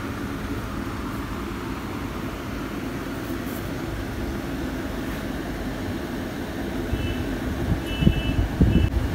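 Steady low rumble of background noise, with a few short, faint high beeps near the end.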